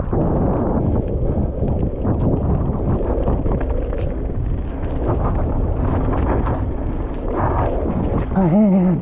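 Mountain bike descending a rough downhill trail at speed: steady wind rush on the camera microphone over tyre and trail rumble, with constant rattling and clattering from the bike. A brief wavering tone sounds near the end.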